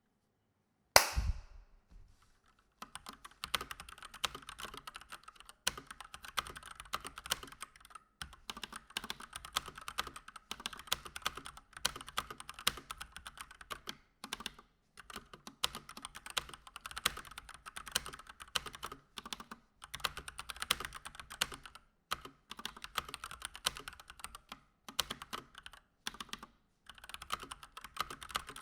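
One sharp knock about a second in, then continuous typing on a Keychron C1 mechanical keyboard with stock, unmodded Gateron Red linear switches: fast runs of keystrokes with short pauses every few seconds.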